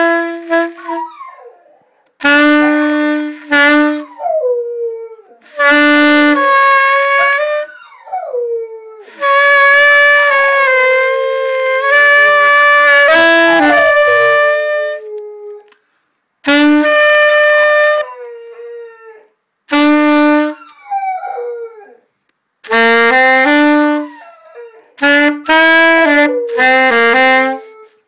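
A saxophone plays short phrases of held notes while a dog howls along. The howls slide down in pitch, and they are heard most clearly in the pauses between the saxophone phrases.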